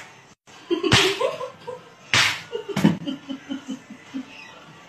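Three sharp open-hand slaps, one about a second in and two close together past the middle, with a short cry after the first and a run of giggling after the last.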